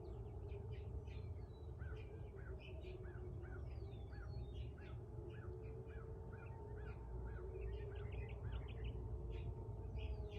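Outdoor tornado warning siren sounding a faint, steady wavering tone, its pitch starting to fall near the end as it winds down. Songbirds chirp over it, one repeating a short note about twice a second.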